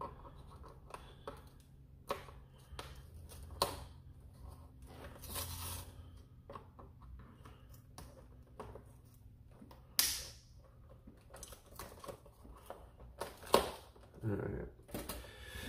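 Scattered clicks and snips of side cutters cutting the plastic ties that hold a toy blaster in its cardboard box, with brief rustling and tearing of the packaging. One louder, sharp snap comes about ten seconds in.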